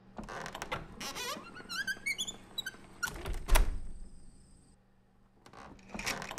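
A run of sharp knocks and clatters, with a string of short squeaks rising in pitch, one heavy thump about three and a half seconds in, and more knocking near the end.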